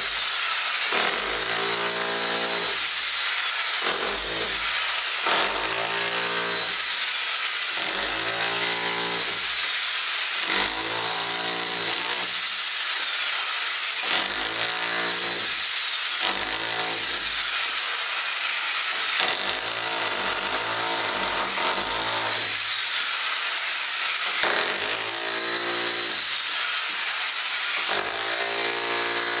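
Electric rotary hammer with a flat chisel bit hammering continuously, chipping concrete render off a hollow-block wall. Its note swells and eases in a cycle about every two to three seconds, with a few sharp knocks along the way.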